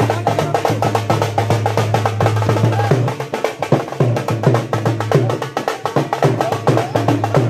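Music driven by fast, dense drumming on band drums, over a steady low sustained note.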